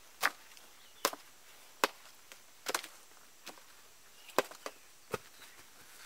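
A series of sharp, short knocks, about one a second and uneven in strength, over a faint background.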